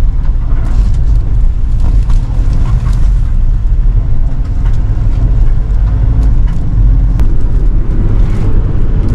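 Steady low rumble of engine and road noise heard from inside a moving passenger van used as a community bus.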